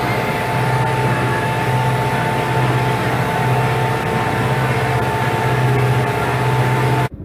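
95-horsepower tractor engine running steadily under load while pulling a three-furrow plough, its low hum swelling and fading in a regular rhythm over a steady higher whine. The sound cuts off abruptly near the end.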